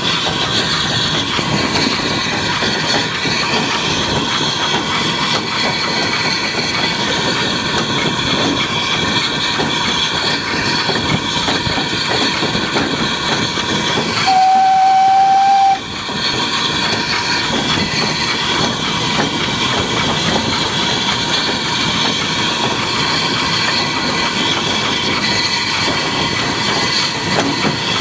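Steam locomotive running along the track with a steady rush of running noise, and one steam whistle blast of about a second and a half about halfway through.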